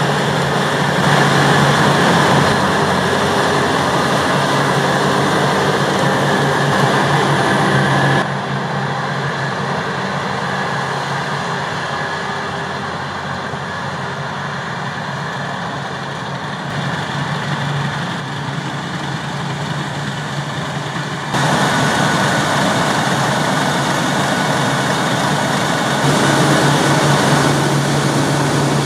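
Heavy harvest machinery engines running steadily, with a constant low engine tone. The sound drops abruptly quieter about eight seconds in and comes back louder about twenty-one seconds in.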